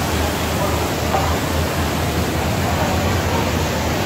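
Steady din of a busy exhibition hall: an even rush of noise with indistinct voices in it and a low hum underneath.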